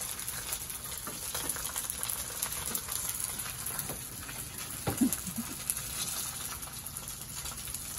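Bánh xèo batter frying in hot oil in a wok: a steady sizzle with fine crackling throughout. A brief louder sound about five seconds in.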